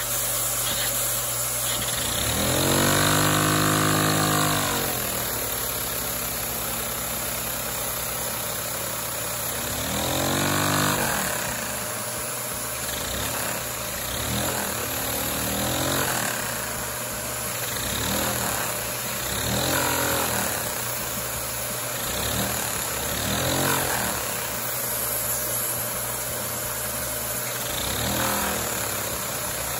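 A one-cylinder LEGO butterfly vacuum engine running, over a steady hiss. A pitched hum swells, rising and then falling in pitch, every couple of seconds; the longest and loudest comes early on.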